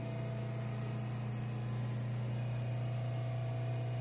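Micro-hydro plant running under load: the Pelton and Turgo turbines turning the 30 kVA three-phase Marathon generator give off a steady low hum with fainter steady higher tones.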